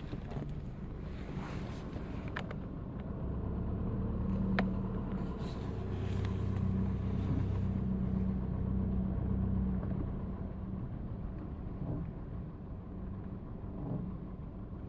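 Car driving slowly straight ahead, its engine and running gear making a steady low hum that grows a little louder in the middle, with a couple of faint clicks. The creak or crunch this car makes when steered to the right is absent while it goes straight.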